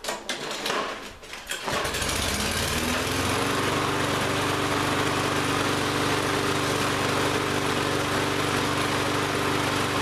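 Lawn-Boy push mower's small engine pull-started: a second and a half of cord-pull rattle, then it catches, revs up and settles into steady running about three seconds in. It runs smoothly now that its gummed-up carburetor has been cleared with carb cleaner.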